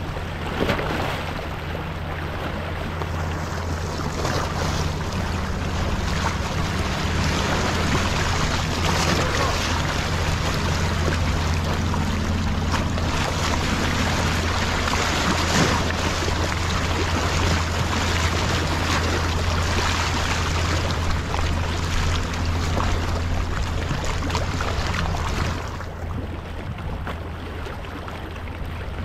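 Sea swell washing and splashing over a low sandstone rock ledge, surging and easing, over a steady low hum. The wash quietens near the end.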